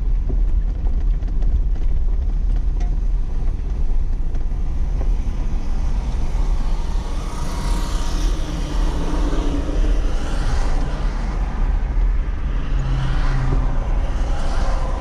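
Jeep driving slowly on a dirt road, heard from inside the cab: a steady low engine and road rumble. A hiss of tyres or passing traffic swells in the second half.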